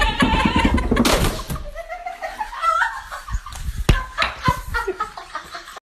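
A man bumping down a carpeted staircase on his backside, with thuds as he hits the steps and a drawn-out, wavering vocal noise from him partway down. Laughter comes from those watching.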